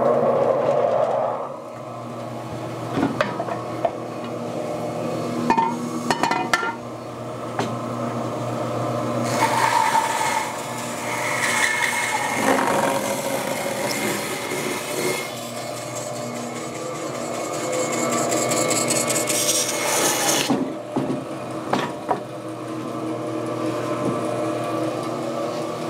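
Benchtop bandsaw running and cutting through a half-round of log to quarter it. The blade's rasping through the wood sits over the motor's steady hum. The cutting noise grows louder and hissier partway through and drops off about twenty seconds in while the saw keeps running.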